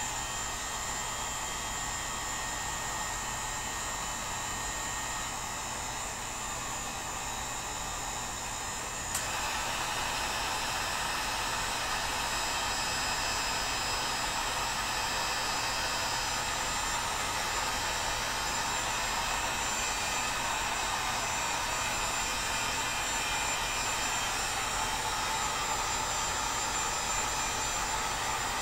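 Handheld heat gun running steadily, blowing hot air. About nine seconds in the sound steps up suddenly and stays louder.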